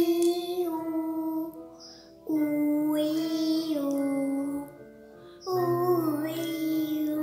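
A young girl's voice singing a vocal warm-up exercise on held vowels: three long sustained notes, each stepping down in pitch toward its end, with short breaths between.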